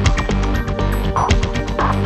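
Loud, busy background music with a strong bass and many sharp percussive hits.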